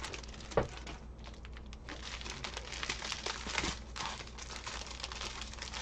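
Small plastic bags of resin diamond-painting drills crinkling and rustling as they are handled and laid out, with a sharper tap about half a second in.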